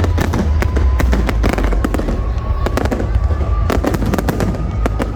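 Fireworks display: a dense run of rapid crackles and bangs over a continuous deep rumble of shell bursts, with no let-up.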